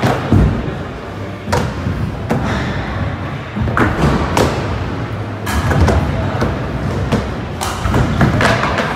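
Skateboard wheels rolling over a wooden mini ramp, with several loud thuds and clacks as the board hits and turns on the ramp.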